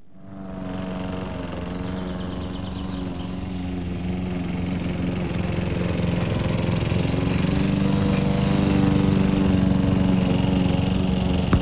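Walk-behind gasoline lawn mower engine running steadily, fading in at the start and growing somewhat louder as it comes closer.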